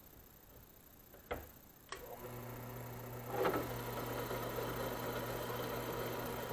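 A couple of sharp clicks, then a WEN benchtop drill press motor starts about two seconds in and runs with a steady hum. About a second later a twist bit bites into a flat metal bar, adding a cutting hiss over the hum.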